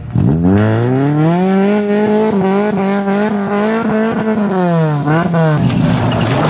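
A small hatchback rally car's engine revs up sharply and is held high and wavering for several seconds as the car, stuck in the roadside verge after going off, tries to drive out. Near the end the revs drop and blip twice, then break off into a steady rush of noise.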